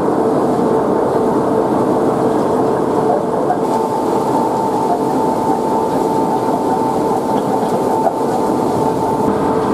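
Wood-briquetting plant machinery running steadily, with the sawdust belt conveyor moving its load: a continuous mechanical running noise with a steady whine through it.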